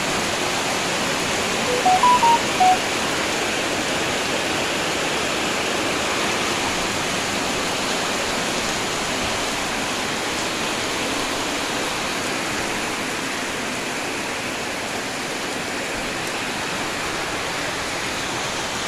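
Heavy rain pouring down, a steady even rush. About two seconds in, a few short electronic beeps sound in quick succession.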